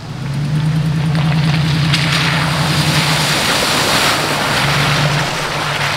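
Off-road vehicle driving along a trail: a steady engine hum with a loud rushing noise over it. The hum fades briefly near the middle and then returns.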